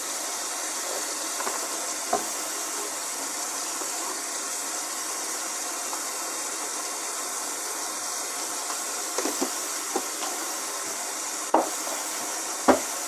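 A few light clicks and knocks of a plastic scoop and drink-mix container being handled, over a steady hiss. The two loudest knocks come near the end.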